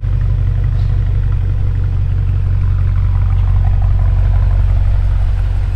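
BMW X5M F85's twin-turbo V8 idling cold through a freshly fitted Fi Exhaust full catback, a steady deep rumble with no revving.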